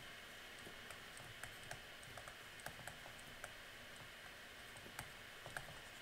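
Faint, irregular light clicks and taps over quiet room tone, a few to the second with no steady rhythm.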